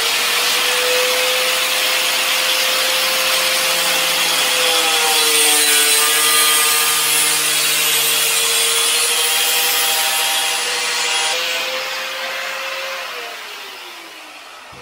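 A cheap Harbor Freight angle grinder with a cut-off wheel cutting through the plastic guard of a tractor PTO shaft. It makes a steady whine with a hissing rasp, and the pitch dips a little mid-cut. Near the end it is switched off and its whine falls as the wheel spins down.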